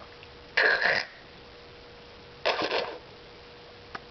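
A baby making two short, raspy, breathy vocal noises about two seconds apart.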